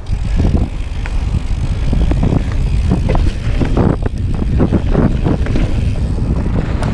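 Mountain bike ridden fast down a rough forest dirt trail, heard from a camera on the rider: wind rumble on the microphone with tyre noise and irregular knocks and rattles of the bike over the bumps.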